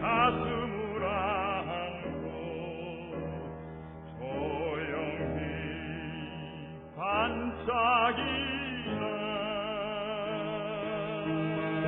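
Classical art-song music: a melody sung or played with strong vibrato over a sustained accompaniment. It swells about seven seconds in. The sound is thin, with no high treble.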